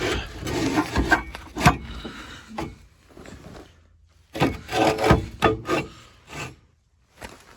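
Irregular scraping and rubbing, broken by several sharp knocks, from work on the truck's frame: metal parts scraped and knocked against each other. It is loudest in the first three seconds and again a little past the middle.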